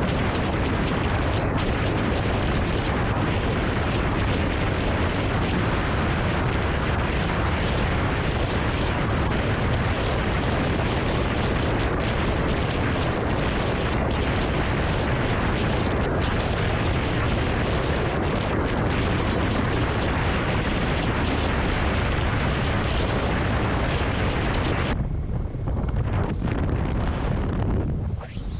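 Heavy wind buffeting the microphone of a camera mounted on a 2018 Honda Goldwing riding at road speed, a steady loud rush over low road and engine rumble. Near the end it drops abruptly to a duller, less hissy rush.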